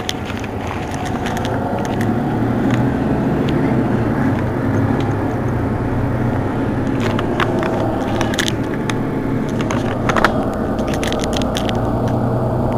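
Mercedes-Benz Citaro facelift city bus's diesel engine running at idle, a steady low drone that grows louder about two seconds in, heard through glass. Scattered light clicks sound over it, the sharpest about ten seconds in.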